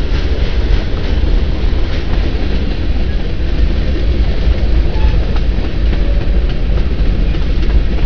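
Freight train of boxcars and covered hopper cars rolling past close by: a steady low rumble of steel wheels on rail, with faint clicks.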